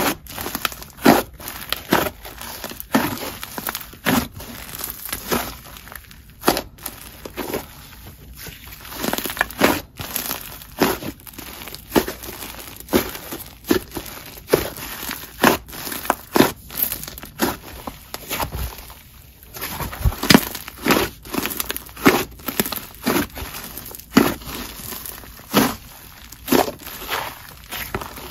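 Thick, clay-heavy white slime being squeezed and folded by hand, trapped air making short sharp pops and crackles, irregular, about one or two a second: the slime is inflated and "super sizzly".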